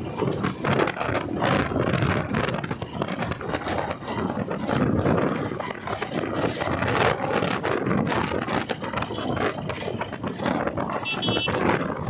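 Wind buffeting the microphone over the road rush of a motorcycle riding along a highway: a steady rush with irregular gusts. A short high-pitched beep sounds near the end.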